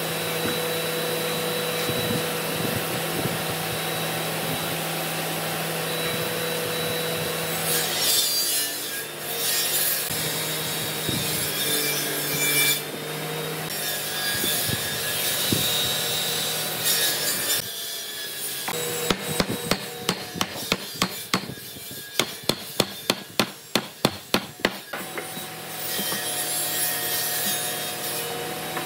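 An electric woodworking tool running steadily with its motor hum, rubbing against wood, stopping and starting through the middle. Partway through come quick hammer blows on wood, about three a second for several seconds, before the machine runs again near the end.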